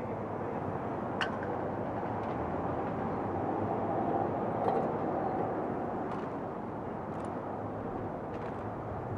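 Steady road and engine noise of a car driving, with a few faint ticks.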